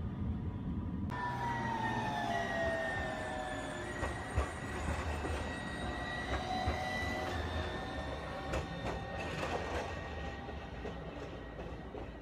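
AnsaldoBreda Sirio low-floor electric tram running past close by: a high whine that slides down in pitch and then holds steady, with scattered clicks from the wheels on the rails. The sound eases off near the end as the tram moves away.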